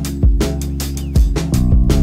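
Instrumental beat: deep sustained bass notes under sharp percussion hits in a fast, even rhythm.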